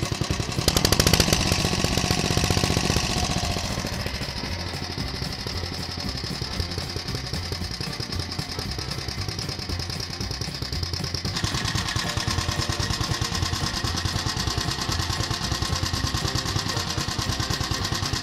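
Old Nissan single-cylinder stationary engine running steadily after repair, a fast, even chugging of its firing strokes.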